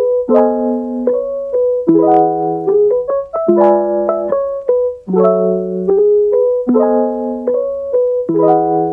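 Background piano music: repeated chords with a short melody over them, the phrase coming round about every second and a half.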